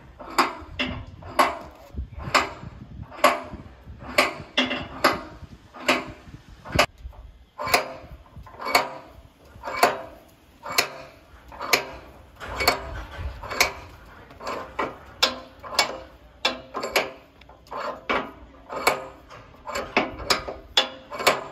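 Repeated sharp metallic clanks, each with a short ring, coming unevenly about one or two a second.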